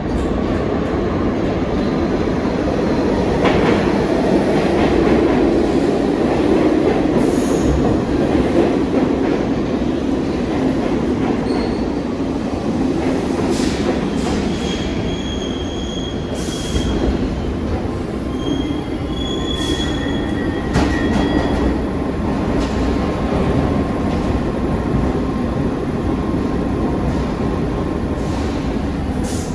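New York City subway train pulling into a station platform and braking to a stop. A steady rumble of wheels on rails is broken, about halfway through, by several short high-pitched wheel squeals.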